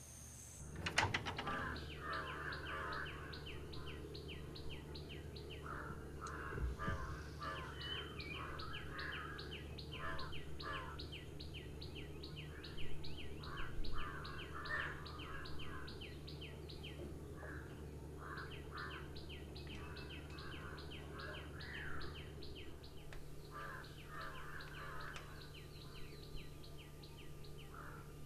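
Birds chirping and calling, with long runs of short high notes at about four a second and scattered lower calls, over a steady low hum. The sound comes in suddenly about a second in.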